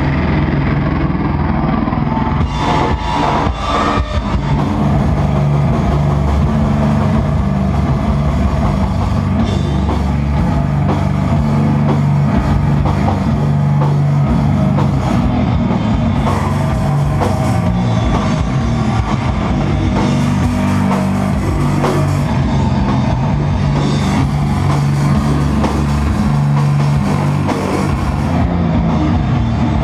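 A sludge metal band playing live: heavily distorted electric guitar holds low sustained chords over a drum kit.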